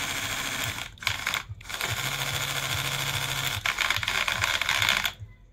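Small electric motor of a homemade RC toy tractor running at full speed, its gearbox rattling and clicking because the gears are broken and the wheels are not turning. It cuts out briefly twice near the start and stops about five seconds in.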